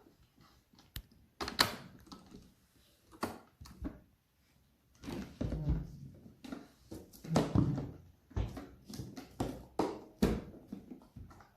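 Hard objects being handled: irregular knocks and clicks, with a cluster of heavier thuds in the middle.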